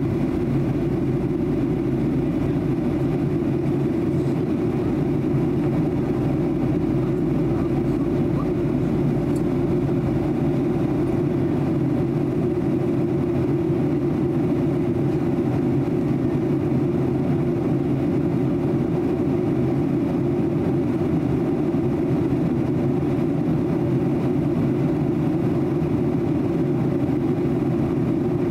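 Steady cabin drone of a Boeing 737-800 in flight, heard from inside the passenger cabin: its CFM56-7B24 jet engines and the rush of air make an even, low rumble that does not change.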